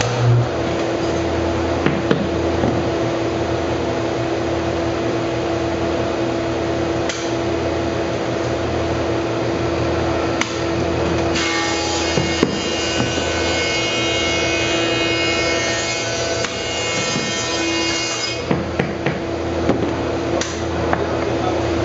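Thickness planer running with a steady motor hum. Roughly halfway through, a board feeds through the cutterhead for about six seconds, making a harsher, higher cutting noise. Wooden boards knock against the machine a few times.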